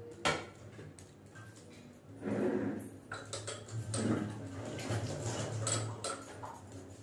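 A sharp clink of a utensil against the metal cooking pot, then soft, irregular bubbling of lentil dal coming to a simmer in the pot, over a low steady hum.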